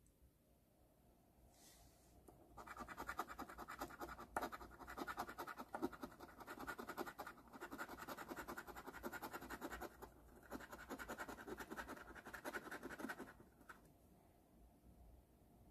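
A coin scratching the coating off an instant lottery scratch-off ticket, in rapid back-and-forth strokes. It starts about two and a half seconds in and runs for about ten seconds, with a few brief pauses, then stops.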